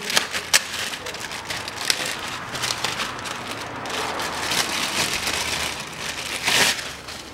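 Plastic bag crinkling and rustling as a new rubber engine mount is unwrapped by gloved hands, with a louder rustle near the end.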